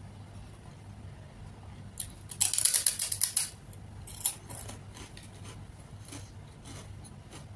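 A crisp fried fryum stick crunched in the mouth: a rapid run of loud crackles for about a second, starting a couple of seconds in, then softer scattered crunches as it is chewed.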